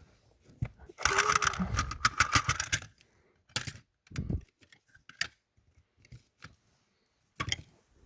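Small metal tools clinking and rattling as they are handled and sorted: about two seconds of dense rattling starting a second in, then a few separate clicks and knocks.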